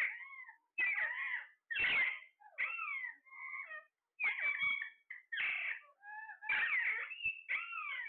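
Alexandrine parakeets calling: a string of harsh squawks with bending, gliding pitch, about one a second.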